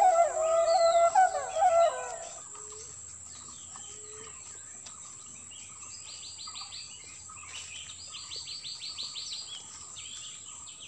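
Flute-like background music ends about two seconds in, giving way to rural ambience of birds calling and insects chirping. Two rapid pulsed trills stand out, one about six seconds in and a longer one about eight seconds in.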